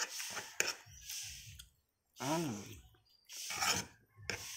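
Close-up eating sounds: a metal spoon clicking against a plate several times, with chewing and breathing between the clicks. About two seconds in there is a short hummed or sighed vocal sound.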